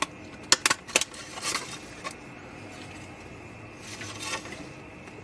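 A stapler driving staples through card stock: a few sharp metallic clicks in the first second, followed by softer handling noises.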